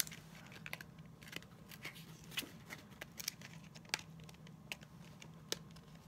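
Fingers picking and prying at a small cardboard puzzle-cube box that is hard to open: faint, scattered scratches, clicks and light tearing.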